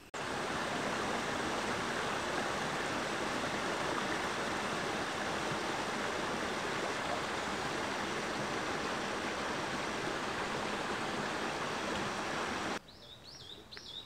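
A mountain stream rushing steadily, with an even noise of flowing water that starts suddenly and cuts off abruptly near the end. A bird then chirps a few times.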